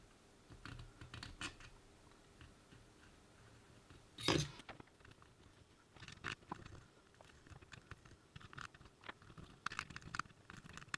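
Faint, scattered crackles and small ticks as a soldering iron melts low-melt solder into the flux on a QFP chip's pins, alloying the joints so the chip can be lifted off. One louder knock about four seconds in.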